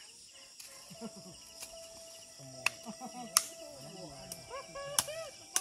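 Steady high-pitched insect chorus in jungle, with faint voices and four sharp knocks or clicks, the loudest a little past halfway.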